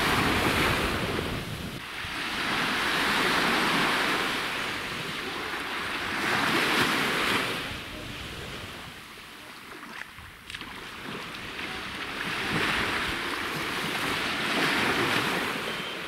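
Small waves breaking and washing up a sandy beach, swelling and fading every few seconds, with some wind on the microphone.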